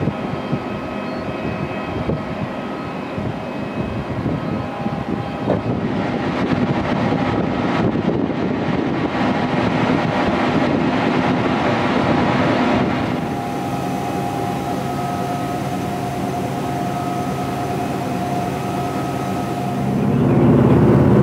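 Route bus engine running with a steady hum and cabin noise. Near the end it gets clearly louder and deeper as the bus pulls away.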